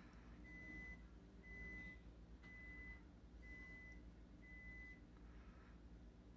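Five faint electronic beeps at one high pitch, evenly spaced one a second, each about half a second long.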